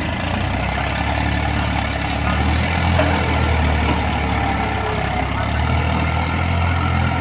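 Diesel farm tractor engine working under load as it hauls a heavily loaded trolley up a slope: a loud, deep, steady drone that swells a little twice.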